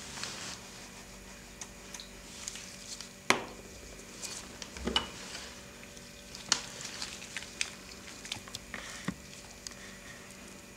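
Small clicks and taps of cosmetics being handled on a magazine, with a brief scrubbing of lipstick on the paper at the start, over a faint steady hum. The sharpest click comes about a third of the way in.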